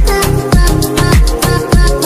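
Background music with a steady beat of about two drum hits a second, each low drum hit dropping in pitch, under a busy upbeat melody.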